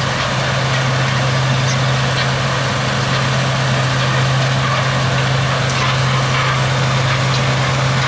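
A John Deere 6145R tractor pulling a Top Air twin-row onion harvester, with a Kenworth truck driving alongside, running steadily under working load. A constant low engine hum with a steady mechanical noise over it.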